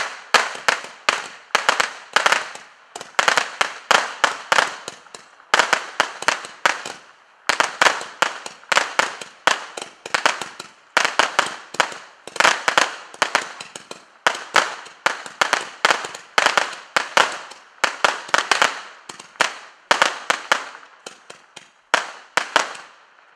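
Miracle Fireworks EMP, an 84-shot firework, firing shot after shot: a rapid string of sharp pops, about three to four a second, in uneven clusters.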